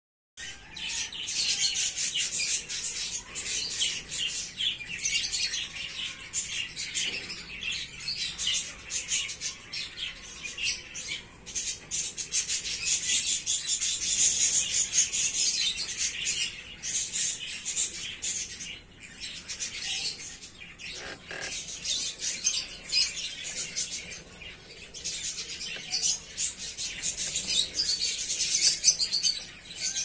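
Small birds chirping, many short high calls overlapping without pause.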